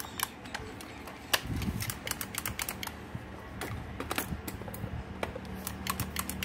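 Quick irregular clicks and clacks of a used cordless drill being handled and worked by hand. The drill is very dirty and keeps cutting out because it isn't getting power.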